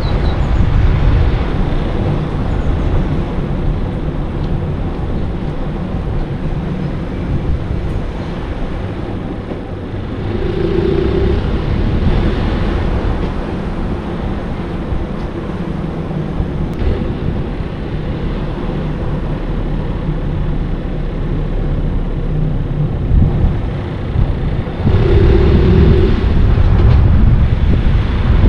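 A car driving slowly along a street: steady engine and tyre-on-asphalt road noise, louder near the end. A short steady tone sounds twice, once about a third of the way in and once near the end.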